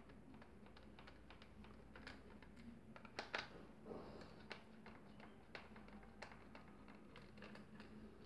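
Faint, scattered clicks and light scrapes of a screwdriver turning out screws inside the plastic housing of a stick mixer, a few slightly louder ticks about three to five seconds in.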